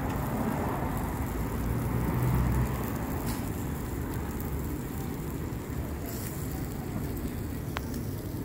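Steady low rumble of street traffic and city background noise.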